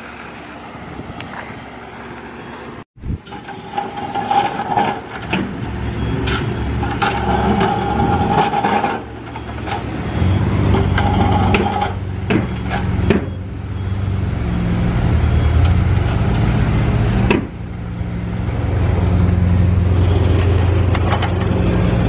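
Mini excavator working close by: its diesel engine runs steadily, rising and falling in level as it works, with intermittent whining tones and repeated knocks and clanks as the arm and bucket move sand.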